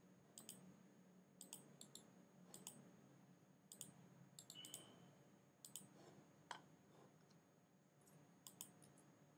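Faint computer mouse clicks, about ten at irregular intervals, as checkboxes are ticked one after another.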